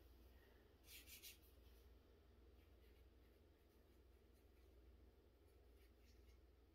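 Near silence with faint scratching of a marker writing on a plant label, loudest as a couple of short strokes about a second in.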